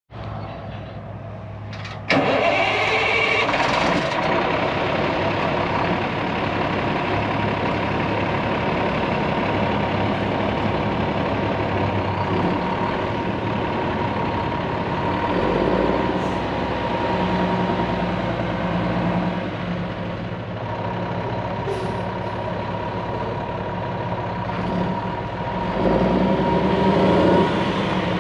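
Diesel engine of a 2007 International 8600 tandem-axle tractor starting about two seconds in, then running steadily with a constant high whine. It grows louder near the end as the truck begins to move off.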